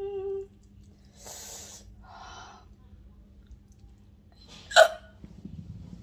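A woman hiccups once, sharply, about five seconds in; it is the loudest sound. Before it come a brief closed-mouth 'mm' and a couple of breaths.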